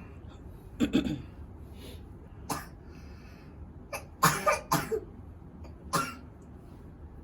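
A person coughing repeatedly: about six harsh coughs, three of them in quick succession around the middle. They come from a patient with a cough that has lasted a month.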